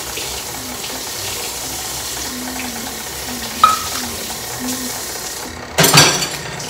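Kitchen sounds as cookie dough is mixed in a bowl: a steady rushing noise, a sharp clink of a utensil about three and a half seconds in, and a louder clatter of utensils or dishes near the end.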